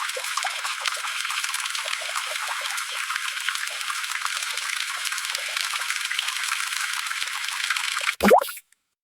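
Water resistance tester's pump running: a steady hiss with small gurgling bubbles. It ends about eight seconds in with a short, sharp burst that sweeps in pitch, then stops.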